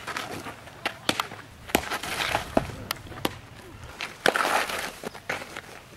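Sharp pops of a softball hitting a catcher's mitt, several times, with the scuff of cleats in the infield dirt between them.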